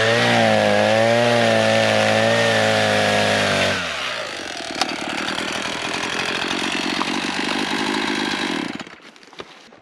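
Two-stroke chainsaw run at high revs for about four seconds, cutting a downed log, then dropping to a lower, rougher running speed before shutting off near the end.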